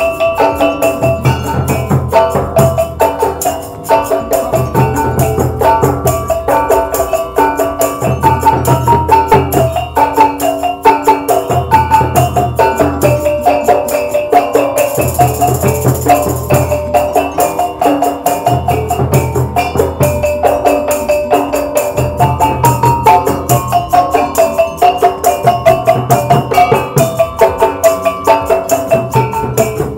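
A caklempong ensemble, rows of small bronze kettle gongs struck with mallets, playing a quick continuous melody over a deeper beat that pulses every second or two. A tambourine shimmers briefly about halfway through.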